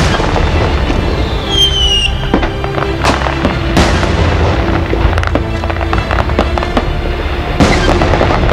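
Aerial firework shells bursting in a dense, continuous barrage of booms and crackles over a constant rumble. A whistling shell rises and then falls in pitch about a second and a half in.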